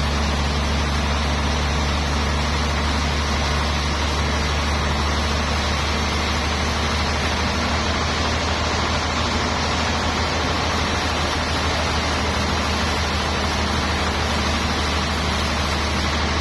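Sawmill machinery running steadily: a constant low engine hum under an even rushing noise, with no change from start to end.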